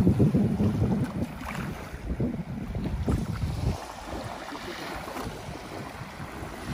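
Wind buffeting the microphone, heaviest in the first few seconds and easing off about four seconds in, over the wash of small waves lapping the beach.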